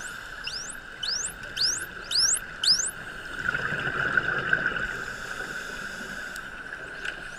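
Bottlenose dolphins whistling underwater: about six quick rising whistles in the first three seconds, about two a second, over a steady underwater hiss.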